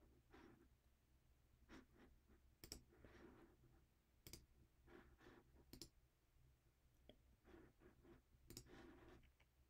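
Faint clicking from someone working a computer: several sharp single clicks at irregular intervals over near silence.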